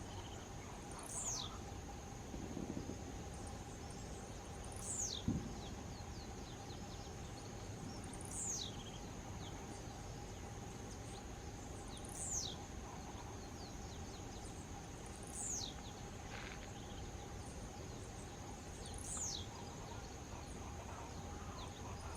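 Blue-black grassquit singing its short song, a sharp high note sliding steeply downward, six times at roughly three-and-a-half-second intervals. A steady high insect drone runs underneath, and a brief low thump comes about five seconds in.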